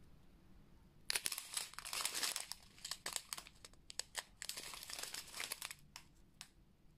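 Thin clear plastic bags of diamond painting drills crinkling as a strip of them is handled, starting about a second in as an irregular crackle with a few short pauses.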